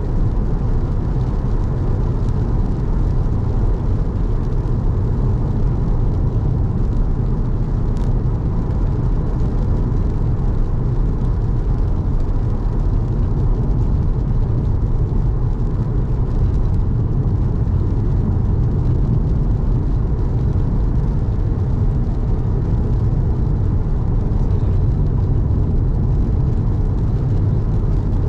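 Steady low rumble of a car being driven: engine and tyre noise. A single brief click comes about eight seconds in.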